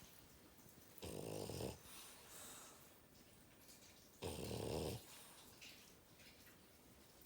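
French bulldog snoring in its sleep: two loud, rattling snores about three seconds apart, each followed by a softer breath.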